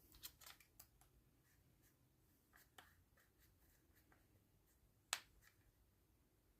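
Light, sharp clicks of metal pen-kit parts being handled and fitted together: a quick cluster of small clicks at the start, a couple more about two and a half seconds in, and one sharper click a little after five seconds.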